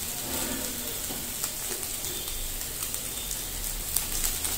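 Chopped meat, green beans and carrots sizzling steadily in oil in a non-stick frying pan, with a spatula stirring the pan near the end.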